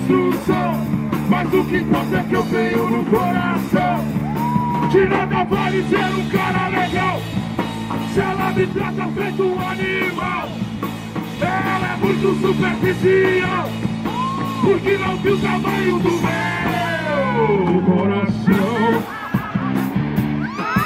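Punk rock band playing electric guitars, bass and drums, with sung and shouted Portuguese vocals. Near the end the pitch slides down and up.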